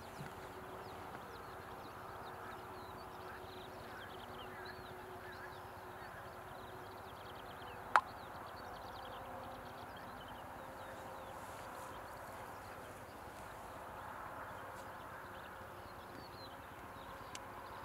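Outdoor ambience of small birds twittering faintly in the distance over a steady low hiss, with one sharp click about eight seconds in and a smaller one near the end.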